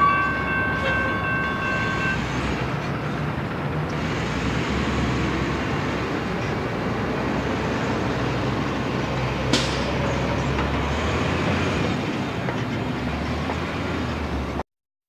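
Diesel locomotive air horn sounding a steady multi-note chord that cuts off about two seconds in. Steady engine rumble follows as a refuse truck drives past, with one sharp click near the ten-second mark, and the sound cuts off abruptly near the end.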